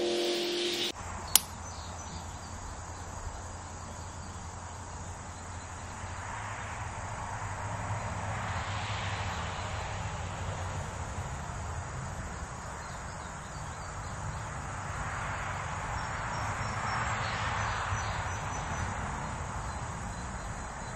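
Faint steady background: a low hum under a soft hiss that swells and fades twice, with a single click just after the start.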